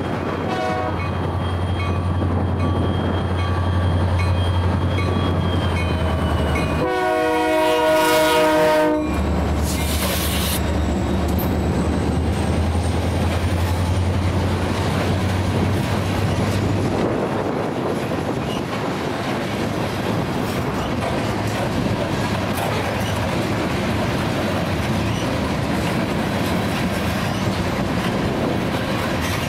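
Diesel freight locomotives approach and pass with a steady low engine rumble, sounding one horn blast of about two seconds about seven seconds in. Loaded covered hopper cars then roll by with a steady clickety-clack of wheels over rail joints.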